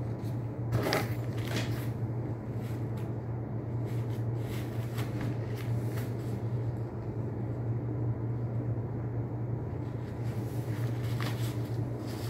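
Faint rustling and a few soft knocks from a fishing rod's black cloth bag and packaging being handled and opened, over a steady low hum.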